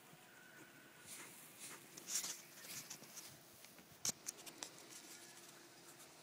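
Quiet, with faint scuffs and clicks from someone walking while holding the phone, and one sharper click about four seconds in.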